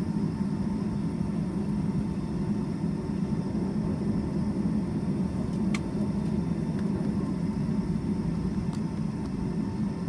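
Steady low rumble inside a Boeing 757-200's cabin while the airliner taxis, with a faint steady whine above it. A sharp click sounds about six seconds in and a fainter one near the end.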